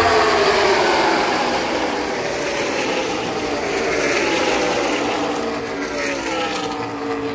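A pack of NASCAR Cup stock cars at full race speed, their V8 engines running together in a loud drone. The engine notes fall in pitch as the cars sweep past, and a second falling sweep comes about four seconds in.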